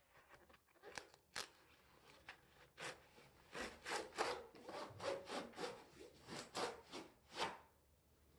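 Utility knife blade slicing through corrugated cardboard along the edge of a flat-pack box, in a quick run of short cutting strokes starting about a second in.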